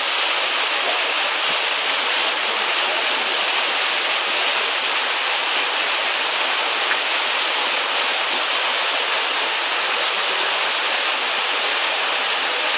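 Waterfall rushing steadily down the rock.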